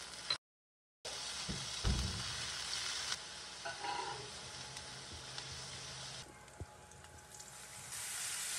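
Onions frying in hot oil in a stainless steel wok, sizzling steadily as garlic and ginger paste and dried red chillies are added and stirred in with a spatula. A couple of dull knocks come about two seconds in, and the sizzle drops off for a moment right at the start and grows quieter from about six seconds before picking up again near the end.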